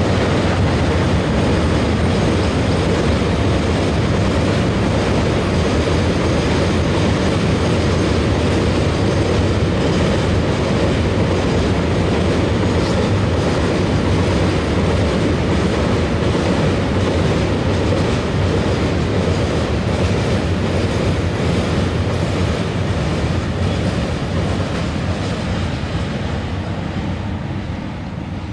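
Freight train of bogie tank wagons rolling past: a loud, steady rumble of wheels on the rails, fading over the last few seconds as the train moves away.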